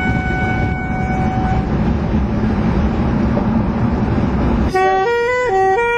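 Loud car and street-traffic noise with a steady held horn tone that stops about a second and a half in. About 4.7 s in it cuts suddenly to music, a melody of stepped held notes on a wind instrument.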